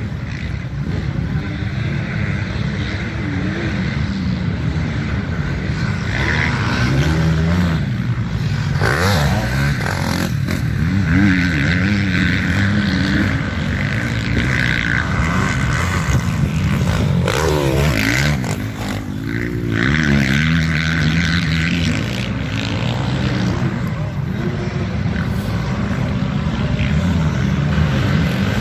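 Dirt bike engines revving on a motocross track, the engine pitch rising and falling again and again as the riders throttle up and back off over the jumps.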